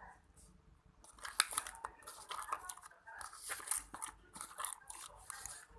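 Homemade slime being worked by hand, a dense run of irregular wet crackles and pops that starts about a second in.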